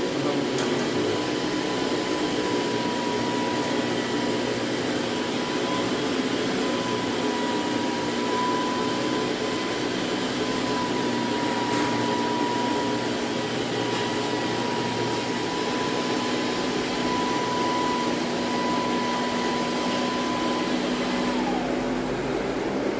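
A home-built floor-cleaning robot's 12-volt DC vacuum blower, mop, brush and fan motors all running together as one steady whirring drone with a high whine. Near the end the whine slides down in pitch as the motors begin to wind down.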